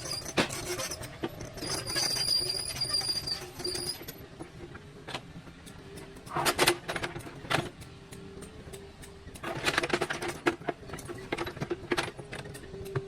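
Excavator at work moving stones: a steady whine with high squealing tones at first, then bursts of clanking and scraping of stone and metal around the middle and again later.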